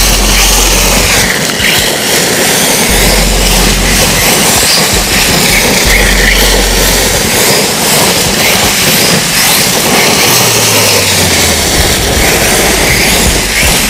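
X-Ray 808e 1/8-scale brushless electric buggy on a 5S LiPo driving hard over dirt and dry leaves: the motor's whine rises and falls with the throttle over a steady rush of tyres and loose dirt.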